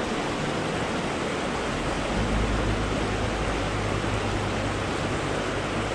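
Creek water rushing over a rocky riffle, a steady full hiss, with a low rumble joining about two seconds in.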